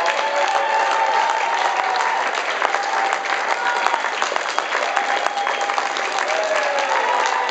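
Audience applauding steadily, a dense clatter of many hands clapping, with a few voices calling out over it.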